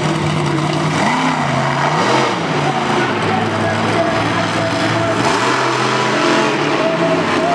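Monster truck engine revving, its pitch climbing and dropping twice over a steady running drone.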